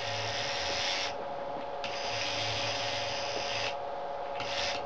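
Small electric motor and gears of a Meccano robot arm spinning its grab, whirring in three spells (about a second, then nearly two seconds, then briefly near the end), over a steady hum.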